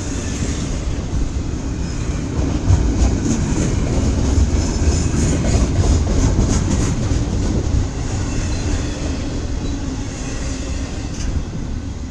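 Double-stack freight train's cars rolling past, a steady heavy rumble with the wheels clacking over the rail joints, the clacking thickest in the middle.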